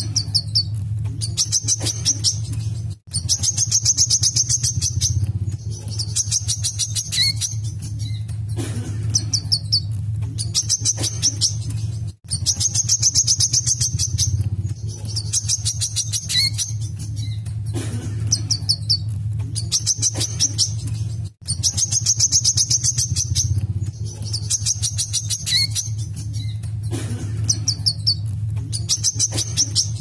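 A caged male wiceh sunbird in full song: a high, fast trilled phrase about a second long, repeated roughly every three seconds, over a steady low hum.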